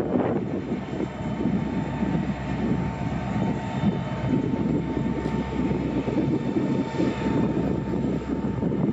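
Steady low rumble of diesel freight locomotives running, with a thin steady whine above it, mixed with wind buffeting the microphone.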